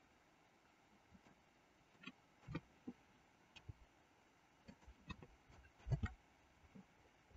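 Faint, irregular clicks of a computer keyboard and mouse, about a dozen, with the loudest about six seconds in.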